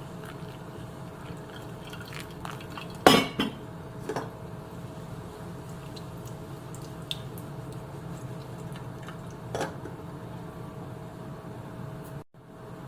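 Dishes and utensils clinking: one sharp clink about three seconds in, a few lighter ones after it, over a steady background hum.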